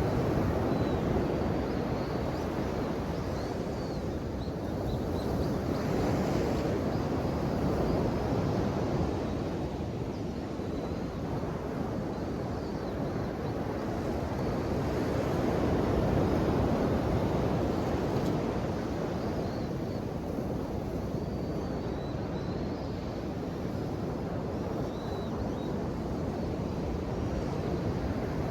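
Ocean waves breaking and washing on the shore, a continuous rush that swells and eases in slow surges several seconds apart.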